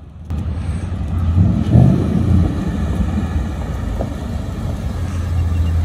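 Ford Mustang running as it drives slowly up and rolls to a stop, a steady low engine and exhaust rumble that swells briefly about two seconds in.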